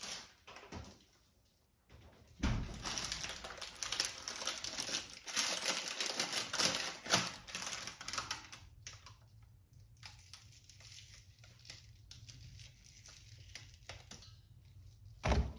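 Asparagus and its plastic wrapping being handled at a kitchen counter. A dense crinkling rustle lasts about six seconds, then softer scattered handling sounds follow, ending in a thump.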